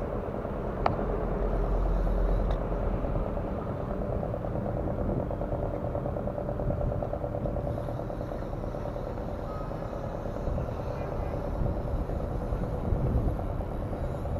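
A motor engine running steadily, with a deep rumble in the first couple of seconds and a single sharp click about a second in.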